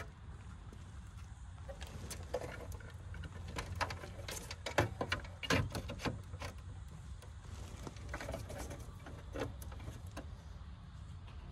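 Irregular small clicks, taps and scrapes of hands working inside an air conditioner's metal electrical box, handling the indoor circuit board and pushing its plug-in wiring connectors. The clicks are thickest about four to six seconds in.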